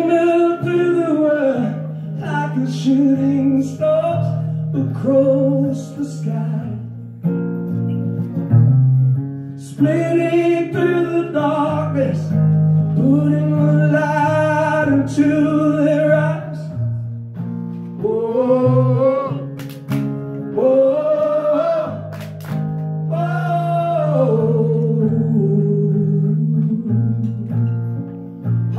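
A man singing long, sliding vocal lines into a microphone over a strummed acoustic guitar, a live solo performance.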